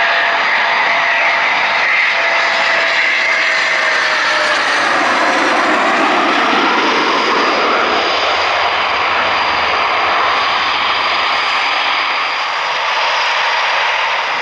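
Eurofighter Typhoon's twin EJ200 turbofan engines running loud. A tone within the jet noise falls steadily in pitch over the first six seconds as the jet goes past.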